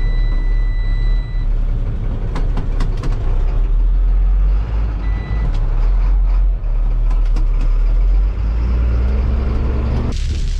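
Chip truck's engine running with a steady low rumble. A high electronic beep sounds twice, a long one at the start and a short one about five seconds in, and wind buffets the microphone near the end.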